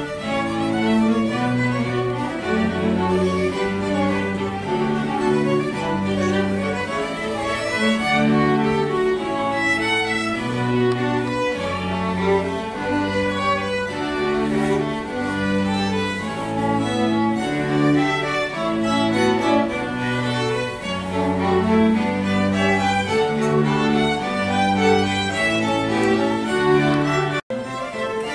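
String orchestra playing: violins, cellos and double bass bowing, with the bass line moving in held notes under the upper strings. Near the end the music cuts off for an instant and resumes.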